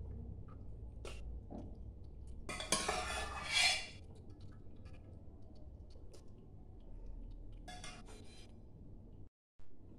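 Stainless-steel kitchenware clinking and clattering as pieces of steamed taro are put onto a perforated steel steamer plate in a steel bowl: a few light clinks, with a longer clatter about three seconds in. The sound drops out briefly near the end.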